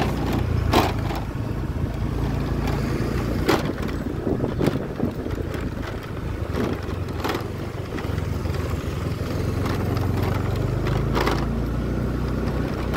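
Motor scooter engine running steadily at low riding speed, with a low hum. Several sharp knocks and rattles break in at intervals over it.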